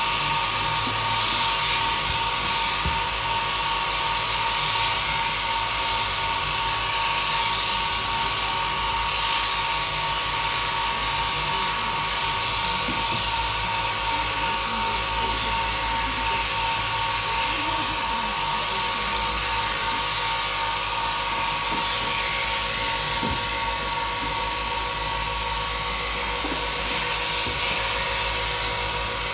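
Mechanical sheep-shearing handpiece on an overhead down-tube drive, running steadily as it clips a sheep's fleece, with a constant high whine.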